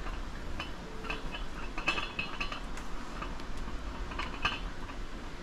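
A spoon clinking against a cooking pot while stirring: several light, separate clinks spread through the stretch.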